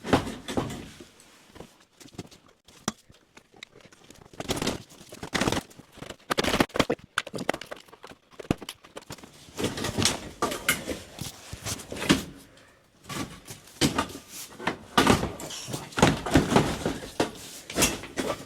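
Irregular metal clunks, knocks and scraping as a car seat is worked loose and pulled out of a 1970s VW Beetle's body, with a couple of quieter pauses.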